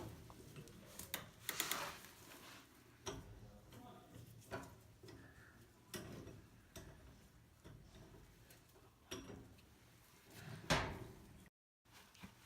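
Irregular knocks, clicks and scrapes of dryer parts and tools being handled, with a heavier thump near the end.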